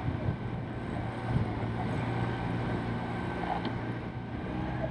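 Motor launch engine running steadily, with wind on the microphone.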